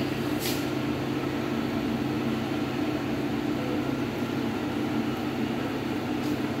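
A steady mechanical hum with a constant low drone, with a short hiss about half a second in.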